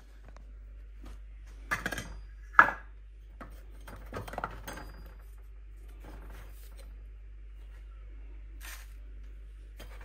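A few sharp clattering knocks of hard objects, the loudest about two and a half seconds in, over a steady low hum in a small room.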